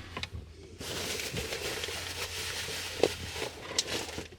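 Rummaging through things in a work truck: a few light knocks and rustles over a steady hiss that sets in about a second in.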